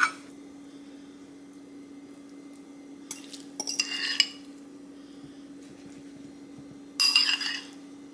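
A metal fork scraping and clinking against a ceramic bowl while scooping tuna salad, in two short bouts, about three seconds in and again about seven seconds in. A steady low hum runs underneath.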